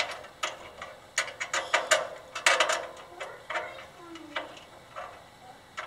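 Irregular small metal clicks and scrapes: a screw and washer knocking and rubbing against a steel bracket as fingers work the screw up into its hole.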